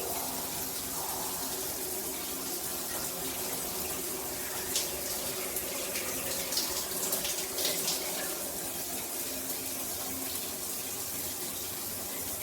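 Water streaming from a large stainless-steel rain shower head running at full flow, a steady even hiss of many jets falling, with a few brighter splashes in the middle.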